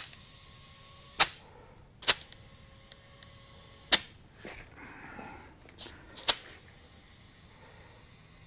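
Sharp knocks and clanks, about six at uneven intervals, from work on a small tractor wheel while a tube-type tire is being forced onto its rim. A faint ringing hangs on after the early knocks.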